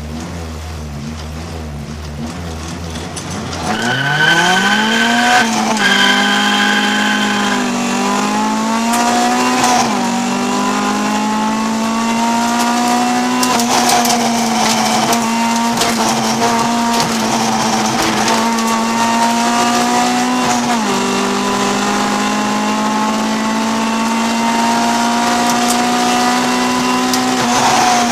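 Honda CRX race car's B20 VTEC four-cylinder engine, heard from inside the cabin. It is held at steady revs on the grid, then launches about four seconds in with a sharp climb in revs and a high steady squeal. Three quick upshifts follow over the next six seconds, then it runs hard at high revs with one more shift later, and the revs fall near the end.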